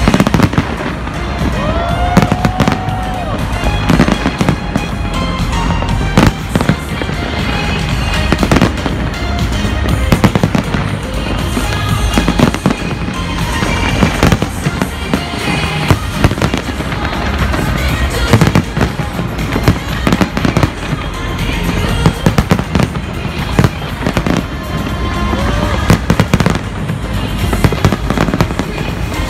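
Large aerial fireworks display: a continuous barrage of loud shell bursts and crackling, with music playing underneath.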